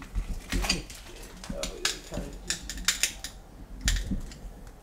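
Footsteps crunching over debris on a littered floor: an irregular run of sharp clicks and crunches.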